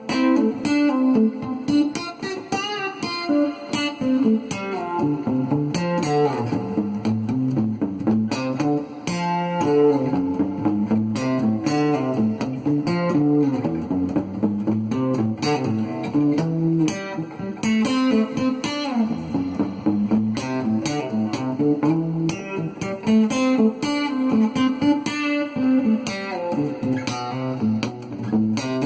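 Cort GA5F-MD steel-string acoustic-electric guitar played continuously: a run of picked notes, with a low line of notes moving under the higher ones.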